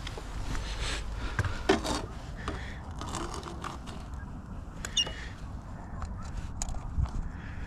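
Scattered scraping and rubbing with a few light knocks, over a steady low wind rumble on the microphone.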